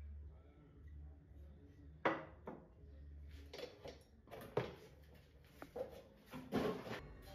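A string of sharp knocks and clinks of hard objects being handled and set down, the loudest about two seconds in, with more in quick clusters after, over a low steady hum.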